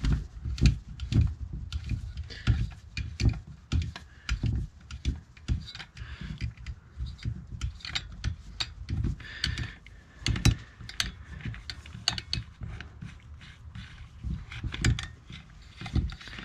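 A screwdriver working at a screw recessed deep inside a chainsaw's intake housing: an irregular run of small clicks and taps of the tool on metal, a few a second.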